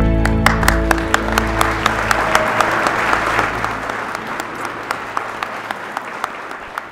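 Congregation applauding, with background music that dies away in the first two or three seconds; the applause gradually fades.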